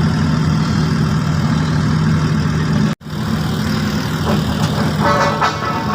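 A steady low machine hum that drops out for an instant about three seconds in.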